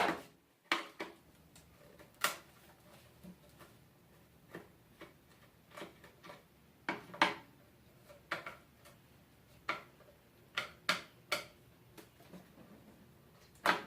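Scattered sharp clicks and taps, irregularly spaced, of a flathead screwdriver working at screws in an appliance's casing.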